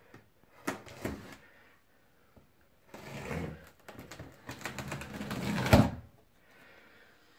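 Utility knife slicing through the packing tape along a cardboard box's seam, a run of scraping, crackling strokes and clicks. A louder cardboard knock near the end as the box flaps are pulled open.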